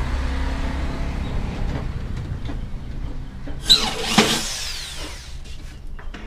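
Corded electric hand drill running for about a second, some three and a half seconds in, boring into the edge of a plywood tabletop, with a sharp squeal as the bit bites and its whine falling in pitch as it stops. A low steady rumble underlies the first couple of seconds.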